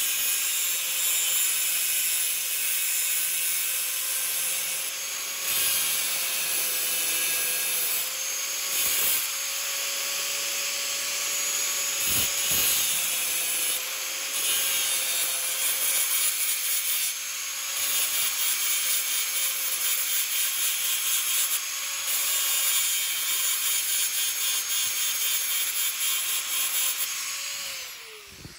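Angle grinder disc grinding a rusted ring terminal on a ground wire down to bare metal: a steady whine with the gritty hiss of the disc on metal, swelling and easing as it is pressed on. Near the end it is switched off and winds down in falling pitch.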